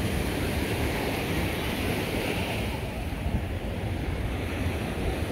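Ocean surf washing on a beach, with wind buffeting the microphone.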